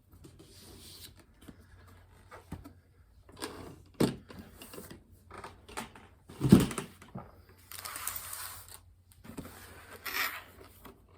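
A cardboard toy box being handled and turned over: scattered taps and clicks, one heavy thump about six and a half seconds in, and cardboard scraping and rustling around eight seconds and again near ten.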